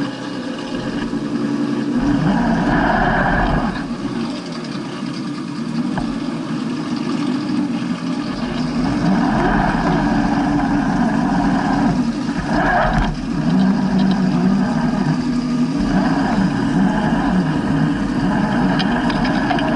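Electric motors and gearboxes of RC scale rock crawlers whining, the pitch rising and falling as the throttle is worked, in stop-and-go bursts.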